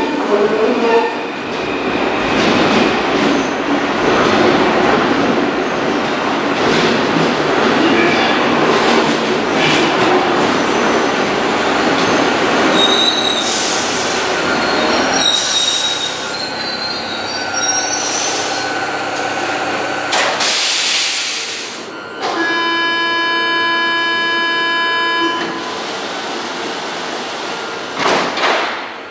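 Paris Métro line 5 MF01 train running into the station with a long rumble of wheels on rail, then high wheel and brake squeals as it slows. A short hiss of air follows, then a steady buzzer sounds for about three seconds: the door-closing warning.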